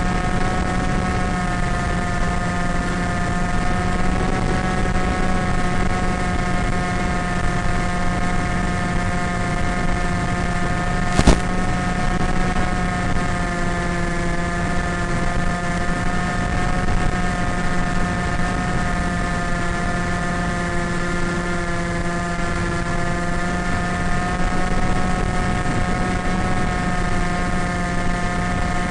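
Electric motor and pusher propeller of an AXN Floater RC foam plane running at steady cruise throttle in flight, a continuous whine whose pitch drifts slightly, over a hiss of airflow. A single sharp click about eleven seconds in.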